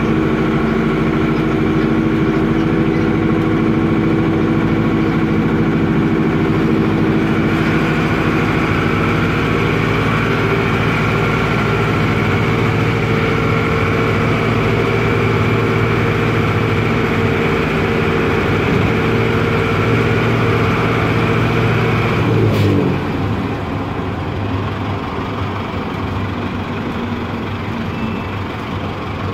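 Otokar M-2000 midibus's air-cooled Deutz F4L912 four-cylinder diesel, heard from inside the bus, running loud and steady under load. About two-thirds of the way through, the revs drop sharply with a brief crack, and the engine runs on more quietly.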